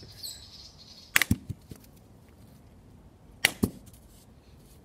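Sharp knocks of an iPhone being smashed: one hard strike about a second in with two quick smaller knocks after it, and two more strikes close together about three and a half seconds in, with a brief scraping hiss near the start.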